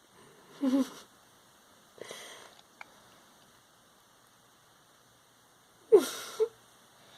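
Short snuffling huffs and brief vocal noises from pets at play, as a young one chews on an older one's ear. There are three or four separate sounds; the loudest, about six seconds in, drops in pitch and is followed at once by a short note.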